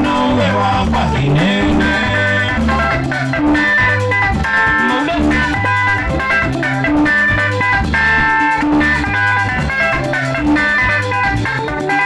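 Live band music: an electric guitar picks a quick, repeating lead melody over a steady bass guitar line.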